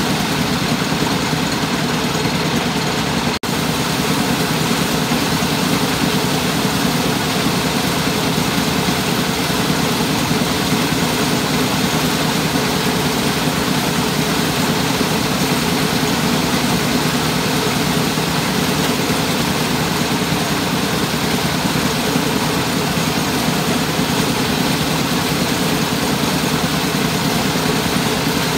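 Engine-driven mobile rice-milling machine running steadily while hulling rice grain: loud, continuous machine noise of the engine and the milling works, unchanging throughout.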